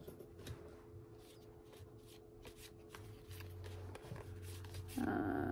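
Baseball trading cards being handled and leafed through: a run of faint, soft clicks and slides as the cards are flipped, a little louder near the end.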